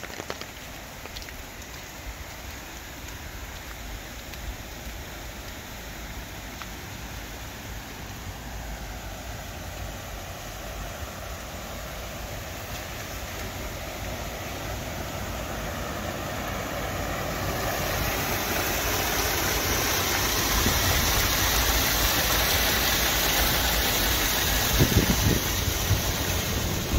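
Rushing water of an irrigation channel, a steady hiss that grows much louder over the first two-thirds and then holds. A few low thumps come near the end.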